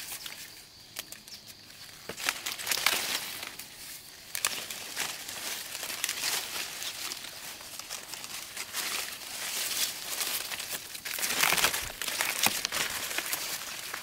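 Dry crinkling and rustling with many short sharp clicks, as of dry material being handled, louder for a stretch about eleven seconds in.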